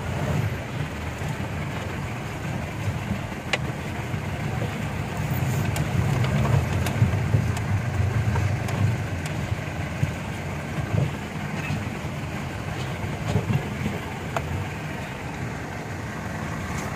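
Jeep engine running steadily at low speed on a rough mountain track, with a few sharp knocks and rattles.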